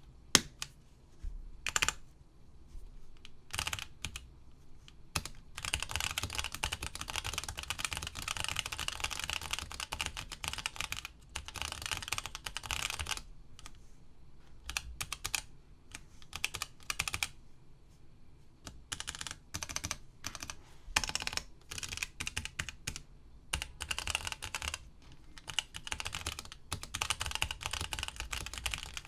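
Keystrokes on a new-old-stock Toshiba J-3100 GT keyboard module with Alps SKFM switches: a few single key presses at first, then fast runs of typing broken by short pauses.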